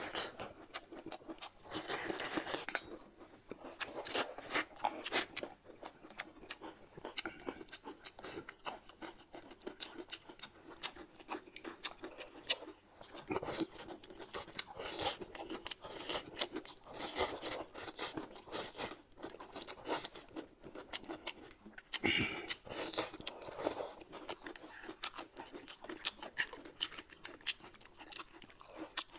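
Close-miked eating sounds: people chewing and crunching food, a dense run of irregular crisp crunches and bites.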